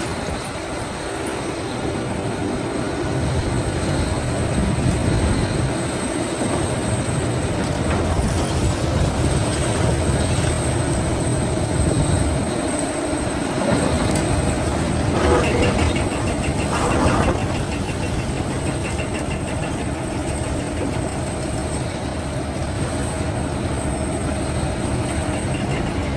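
Excavator working: its diesel engine runs steadily with a thin high whine over dense clanking and grinding, which grows louder about fifteen to seventeen seconds in.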